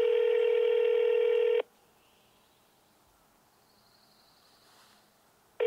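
Telephone ringback tone heard through the phone while a call rings unanswered. One steady ring ends about a second and a half in, there is a pause of about four seconds, and the next ring begins at the very end.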